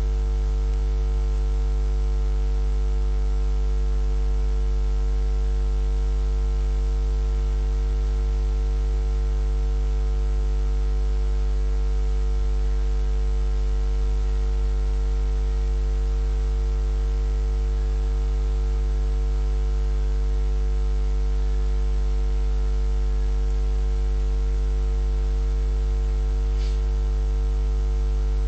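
Steady electrical mains hum with a stack of overtones and a light hiss, unchanging throughout.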